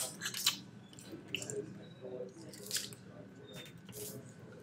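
Close-up wet slurping, sucking and lip smacks of someone eating crab meat out of a crab leg, with a few short sharp clicks scattered through.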